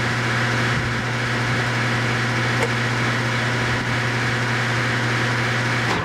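Air conditioner outdoor condenser fan motor running with a steady hum and whoosh of air, with no compressor sound under it: the compressor is not kicking on.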